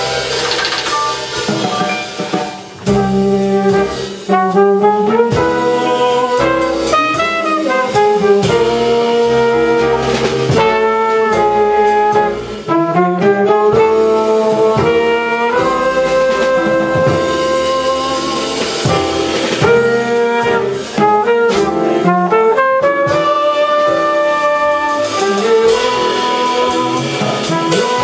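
Live jazz: a trumpet plays a moving melody over drum kit and upright bass, with a man singing into a microphone alongside it.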